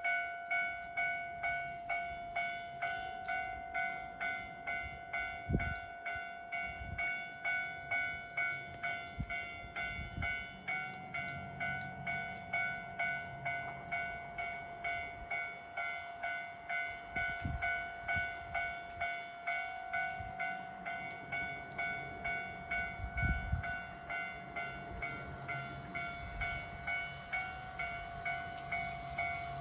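Railway level crossing warning bell ringing in an even, repeating ding, about one and a half strikes a second, the signal that a train is approaching. A new high-pitched tone joins in near the end.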